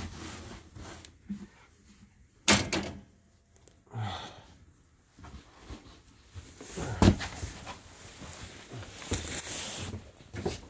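Handling noises during clean-up: two sharp knocks a few seconds apart, with soft rubbing between and a short hiss near the end.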